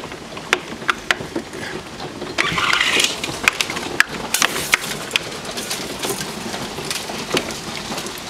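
Large hailstones striking the house in irregular sharp knocks over the steady hiss of heavy rain, with a louder rush about two and a half seconds in.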